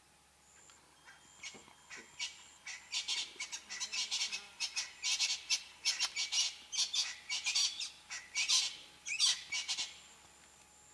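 A bird calling in a rapid, uneven string of short notes. The notes start sparse, crowd together, then stop near the end.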